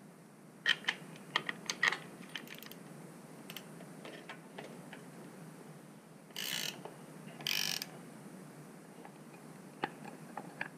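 Metal breather bolts clicking and clinking as they are handled and fitted to a Harley-Davidson Sportster's air cleaner backing plate. There is a quick run of sharp clicks early on. A little past halfway come two short ratcheting bursts, and a few light ticks follow near the end.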